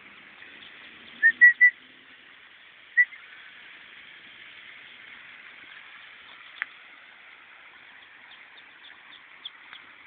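Ducklings peeping: three quick high peeps about a second in, then one more at about three seconds, over a steady outdoor hiss. A single sharp tick comes a little past the middle.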